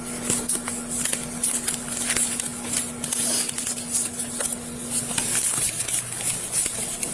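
Scattered small clicks and rustling handling noise over a steady low hum.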